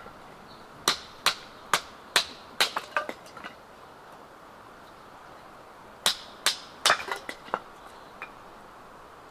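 Repeated sharp knocks, struck about twice a second in two runs of several strikes each, the second run starting about six seconds in.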